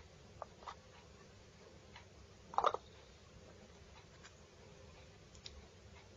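Small metal cat-food tins clinking as they are stacked one on top of another: a few light clicks, with one louder clatter of several clinks about two and a half seconds in.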